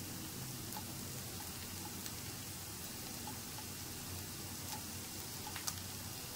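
Vegetables and mashed boiled potato sizzling gently in oil in a kadai, with a few faint clicks.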